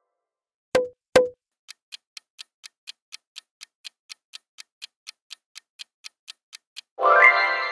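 Quiz countdown-timer sound effect: two sharp knocks about a second in, then a clock ticking about four times a second, ending near the end in a ringing chime.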